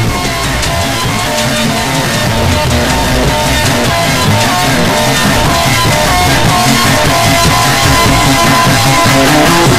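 Rock music with guitar and drums, slowly getting louder.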